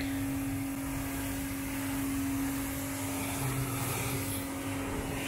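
Pressure washer running steadily in its lowest, soap-applying mode: a constant hum with the hiss of the water spray on the car.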